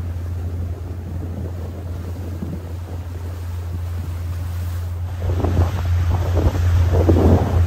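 Small outboard motorboat running at speed: wind buffeting the microphone over the rush of the wake, with a steady low drone underneath. The wind turns louder and gustier about five seconds in.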